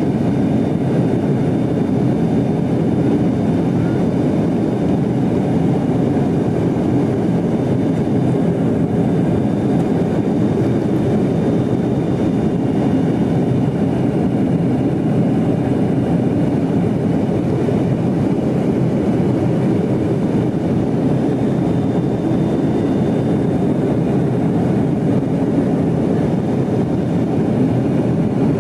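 Steady cabin noise inside a Yakovlev Yak-40 in flight: the rumble of its three Ivchenko AI-25 turbofan engines and the airflow, with a faint high whine above it.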